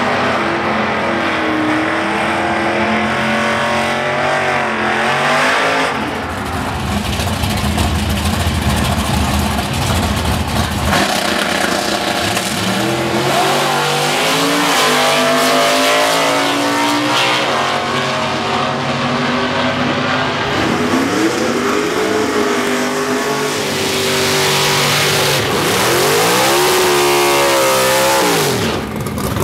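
Drag-racing engines at wide-open throttle on several runs down the strip, their pitch climbing and dropping as they shift through the gears. Near the end a Chevy S10 pickup's engine revs up fast during a smoky burnout.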